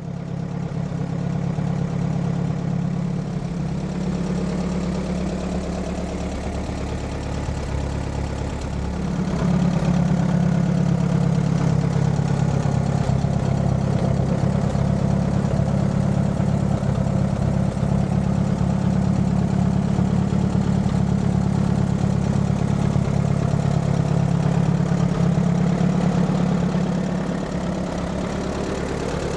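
Allis-Chalmers B tractor's four-cylinder gasoline engine running steadily. It speeds up and gets louder about a third of the way in, then eases back down near the end.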